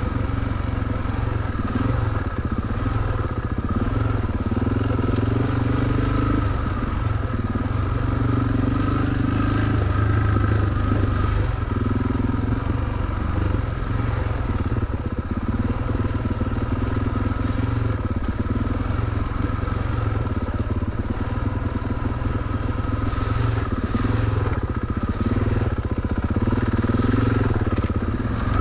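Suzuki DR-Z400's single-cylinder four-stroke engine running under way on a dirt trail. Its pitch rises and falls over and over as the throttle opens and closes.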